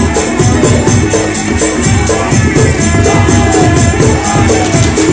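Loud, fast music with a steady quick beat and jingling, cymbal-like percussion, about four strokes a second.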